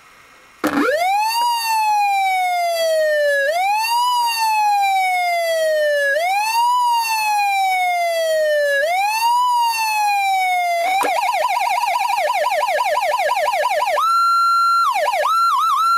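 Federal Signal PA-15 electronic siren sounding through its speaker: a wail that climbs quickly and falls slowly, four times, then switches about eleven seconds in to a fast yelp. Near the end it holds a steady high tone, then breaks into a few quick dips.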